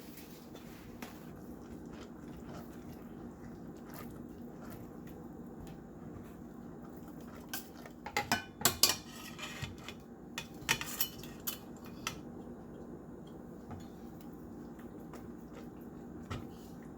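Metal kitchen utensils clinking and knocking against cookware in a quick flurry of strikes between about eight and twelve seconds in, over a low steady hum.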